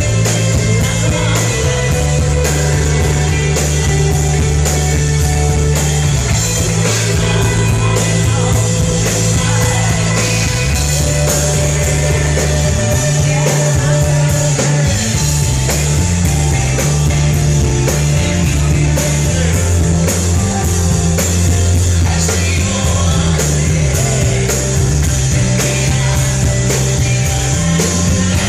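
Rock band playing live, loud and steady: a drum kit keeping a regular beat under held bass notes and electric guitar.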